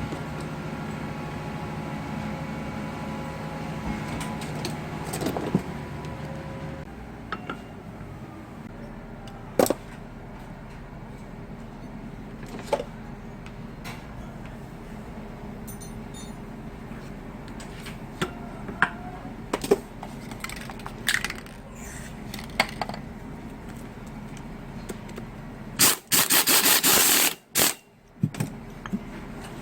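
Car air-conditioning compressor repair work: metal tools and parts clicking and clinking at scattered moments. A steady machine hum stops about seven seconds in, and a loud rough burst lasting about a second and a half comes near the end.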